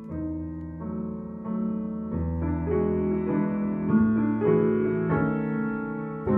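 Piano playing a slow, classical-style passage of chords and melody notes, growing steadily louder.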